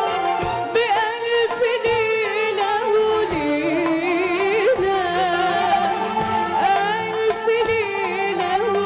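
A woman singing an Arabic song live, holding long, ornamented notes that waver and glide in pitch, backed by a small Arabic band with hand drums and keyboard.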